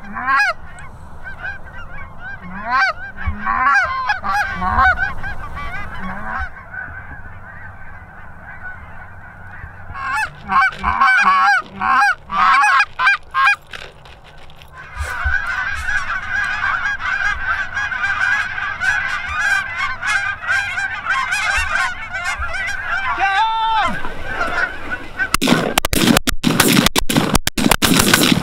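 A flock of geese honking overhead. Scattered calls at first, then a louder run of calls, then a dense chorus of many birds calling at once. Near the end a loud crackling noise across all pitches swamps the calls.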